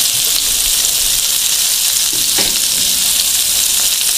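Chicken shashlik skewers sizzling steadily in a little hot oil in a non-stick frying pan as the chicken cubes are browned golden.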